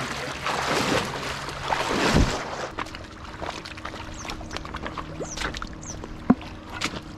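River water splashing and sloshing, loudest about two seconds in, stopping abruptly about two and a half seconds in. After that it is much quieter, with a faint steady hum, scattered light clicks and one sharp click near the end.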